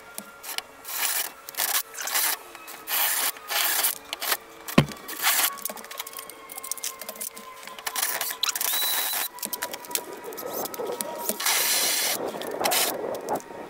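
Cordless DeWalt drill driving a twist bit through the aluminium stile of a storm door, widening the handle holes. The bit grinds in short repeated bursts over a faint motor whine, then in one longer steady run near the end.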